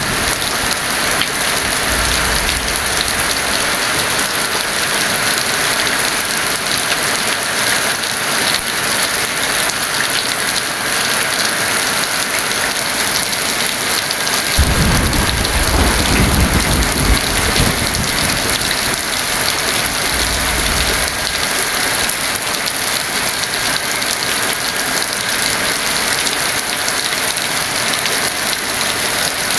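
Heavy rain falling steadily, with rolls of thunder: a short low rumble about two seconds in, a longer, stronger roll around halfway, and another short rumble a few seconds after that.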